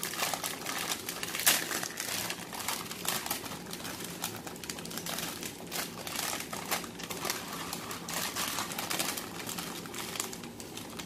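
Plastic-foil instant ramen packet crinkling and crackling as it is torn open and handled, a dense run of sharp irregular crackles with the loudest about a second and a half in.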